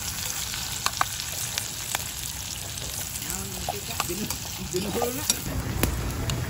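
Food sizzling in a pot over an open wood fire: a steady hiss, with sharp pops and crackles from the burning wood now and then.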